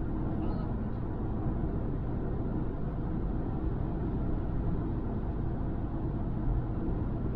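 Steady low rumble of a car driving at road speed, heard from inside the cabin: engine and road noise with no sudden events.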